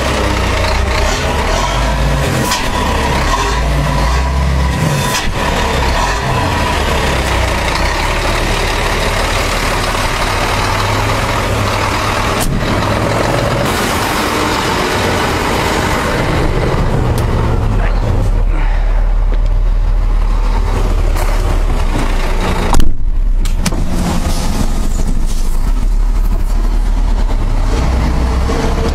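Ford Ranger pickup driving on a dirt road, heard from inside the cab: a steady rumble of tyres and engine with scattered knocks from the rough surface, and one loud thump about two-thirds of the way through.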